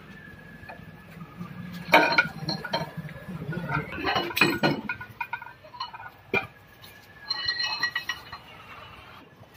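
Metal clinks and knocks of a Massey Ferguson 241 tractor's brake assembly being handled and worked on by hand, with sharp strikes about two, four and six seconds in and a brief ringing clatter near the end.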